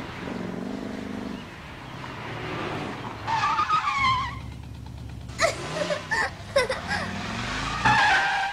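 Car engine running with a steady low hum, its pitch rising briefly about six seconds in. Short high squeals sound over it about three seconds in, again several times between five and seven seconds, and near the end.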